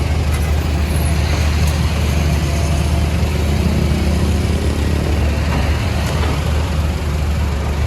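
CAT 462F backhoe loader's diesel engine running steadily with a deep, loud drone.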